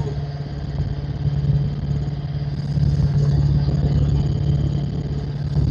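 Helicopter in flight: the steady drone of its engine and rotor, with a constant low hum.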